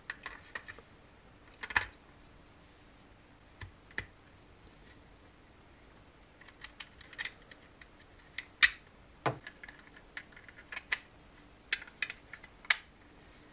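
Irregular small plastic clicks and taps as an AA battery, the small USB receiver and the battery cover are fitted into the underside of a 3D-printed wireless mouse, with a few sharper clicks among them.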